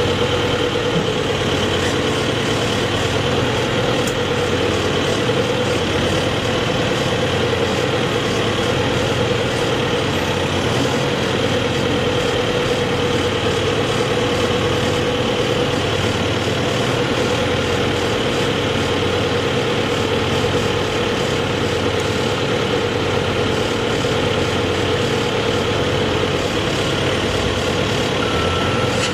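Heavy engine-driven machinery running steadily, with a constant whine over a low, uneven rumble.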